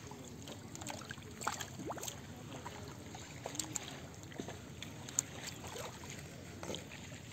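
Hands digging and squelching in wet, waterlogged mud, with scattered small wet slaps and clicks.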